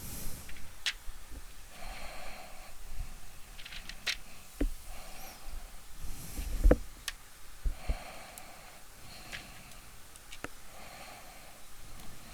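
Scattered light clicks and knocks of a small plastic stage-light housing and its parts being handled and opened up, with one heavier knock a little past halfway.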